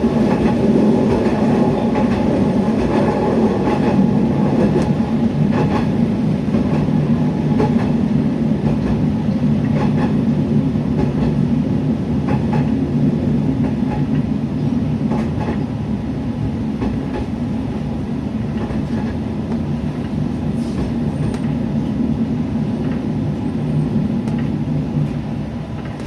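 Niigata Transys NDC diesel railcar running along the line, heard from inside the car: a steady low engine drone with scattered clicks of the wheels over rail joints. The sound eases off in the second half and drops away near the end as the car slows for the station stop.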